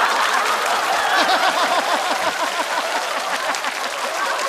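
Studio audience laughing and applauding together: a crowd of voices laughing over steady clapping.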